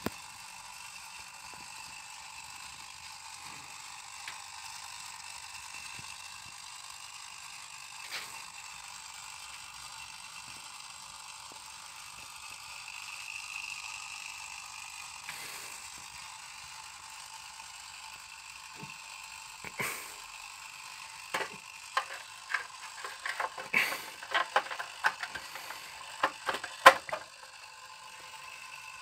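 Hard plastic clicks and clatter from handling the cover and parts of a wall-mounted electrical enclosure that holds a staircase timer. There are a few isolated clicks at first, then a quick run of clicks and knocks in the last third as the cover goes on.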